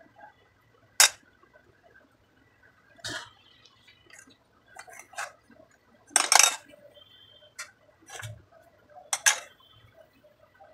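A steel spoon clinking against an aluminium pan as it scoops out portions of dough, with about six sharp metallic clinks spread out. The loudest clatter comes a little past the middle.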